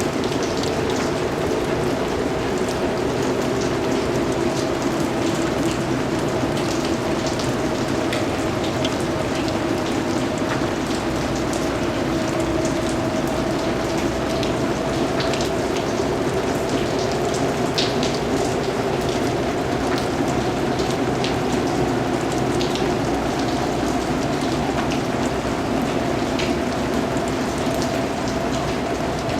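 Steady rain falling on a surface, with individual drops ticking here and there at a constant level.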